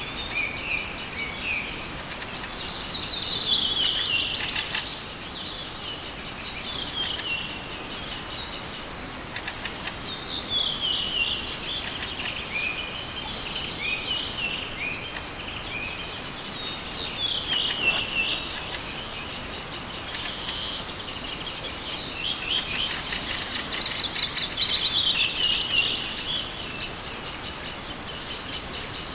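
Songbird singing outdoors, repeating a short phrase of quick notes that slide down in pitch every few seconds over a steady background hiss.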